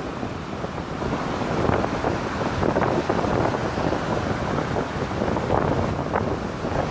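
Wind buffeting the microphone over the steady wash of small waves breaking and running up a pebble beach, with a continuous crackling rush.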